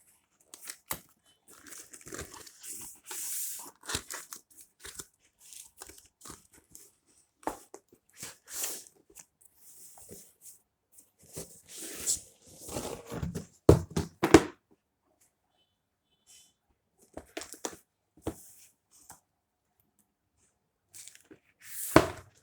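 Packaging being torn open and crinkled by hand as a box is unpacked, in irregular bursts with pauses, plus a few sharp knocks from handling the box, the loudest about two-thirds of the way through and just before the end.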